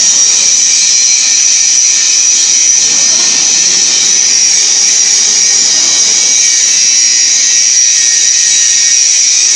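Steady, loud, high-pitched machine whine over a hiss, unchanging throughout.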